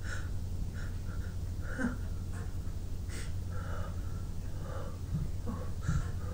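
A person's soft breaths, sniffs and small catching gasps as a sneeze builds up, over a steady low hum.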